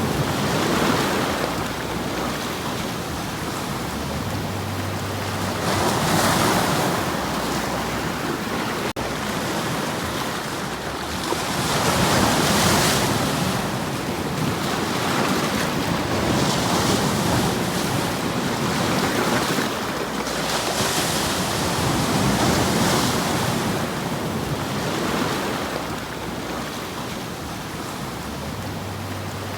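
Sea waves surging and washing, the surf swelling and falling back every few seconds.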